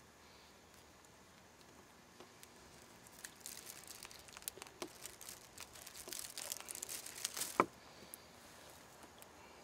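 A grouse being cleaned by hand: a run of crackling, tearing sounds as feathers and skin are pulled away, starting about three seconds in and ending with one sharp snap near the end.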